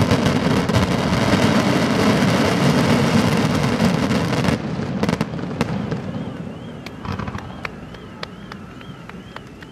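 Daytime fireworks barrage: dense, continuous crackling and bangs that stop abruptly about four and a half seconds in, followed by scattered single pops that fade away. A faint tone warbling up and down runs through the last few seconds.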